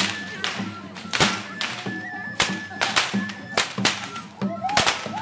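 Tlacololero dance music in the street: a flute holding long high notes over a drum struck about twice a second. Sharp cracks ring out with the beats.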